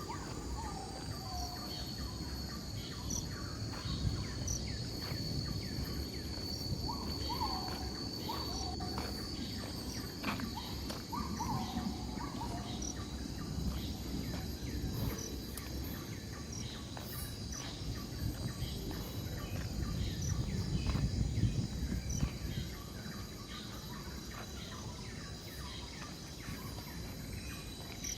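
Rural outdoor ambience: a steady high-pitched insect drone with scattered short chirps, and a few short falling calls a handful of times in the first half. A low rumble runs underneath.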